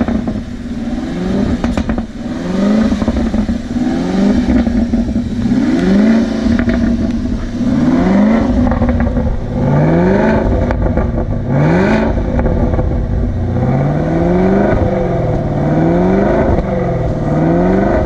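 V8 engine revved again and again, its pitch climbing and dropping back roughly every second and a half.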